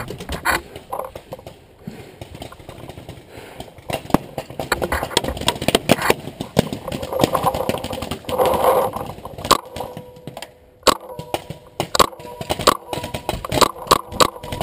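Paintball gunfire: sharp cracks and pops, coming in dense runs through the middle and spaced out again near the end. A steady tone joins the cracks in the last few seconds.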